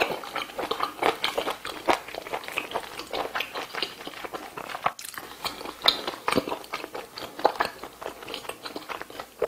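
Close-miked chewing of a mouthful of braised kimchi and pork: rapid, irregular mouth clicks, with a short break about five seconds in.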